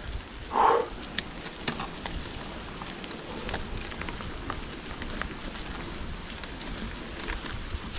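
Bicycle riding noise: tyres rolling with a steady crackly hiss and scattered sharp clicks and ticks, with a short louder rustle about half a second in.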